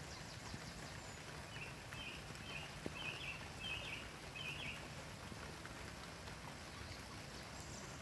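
A songbird, taken by the recordist for a nightingale, gives a run of about six short rough notes, about two a second, over a steady background hiss.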